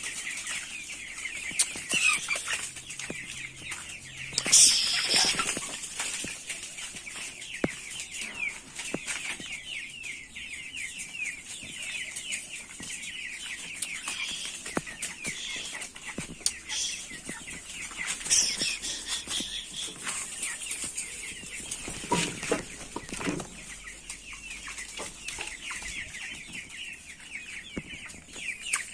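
A flock of broiler chickens cheeping and clucking continuously, many birds overlapping, with a few louder bursts about five and eighteen seconds in.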